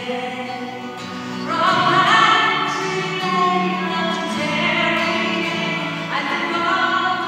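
A woman singing a Celtic song, accompanied by a strummed twelve-string acoustic guitar. New sung phrases begin about one and a half seconds in and again near the end.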